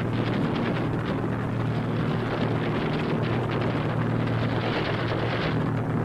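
Aircraft engines droning steadily in flight, a constant low multi-tone hum under a rough noise, on an old film soundtrack.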